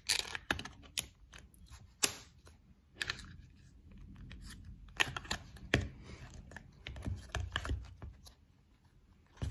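Plastic lids being pressed and snapped onto small clear plastic slime containers, with the tubs handled on a tabletop: a run of irregular sharp clicks and taps, the sharpest about two seconds in.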